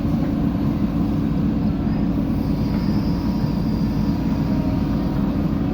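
JCB 3DX backhoe loader's diesel engine running steadily, with a continuous low drone and a faint high whine for a second or so midway.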